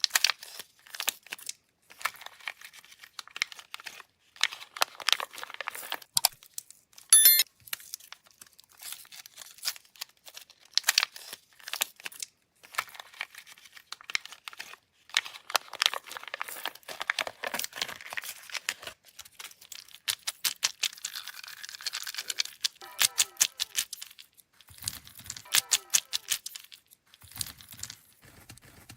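Plastic candy wrappers and packaging crinkling and being torn open, in dense runs of crackles and small clicks, with a brief squeak about seven seconds in.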